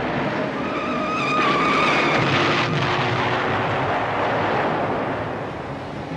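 1947 Chevrolet panel truck's engine revving hard as the accelerator is floored, mixed with a film music score. A wavering high whine sounds for about two seconds near the start.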